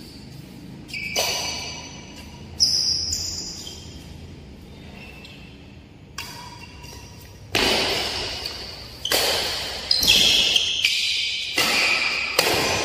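Badminton play on an indoor court in a large hall with ringing echo. There are a few scattered taps and shoe squeaks at first, then from about halfway a rally: about five sharp racket-on-shuttlecock strikes, a second or so apart.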